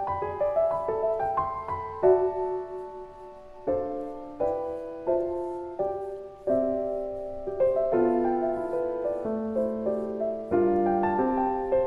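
Soft solo piano background music, a gentle melody of struck notes over chords, each note fading after it is played.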